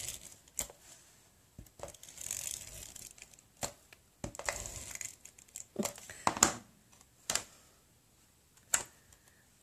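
Patterned paper and cardstock being handled and pressed down while being glued onto a card base: irregular paper crinkles, rustles and small taps.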